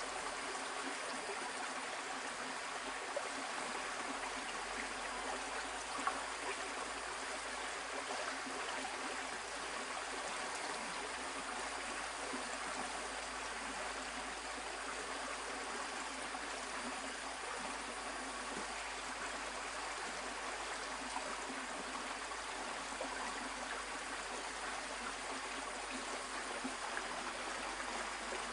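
Shallow stream flowing and trickling over rocks, a steady even rush of water, with a couple of faint clicks a few seconds in.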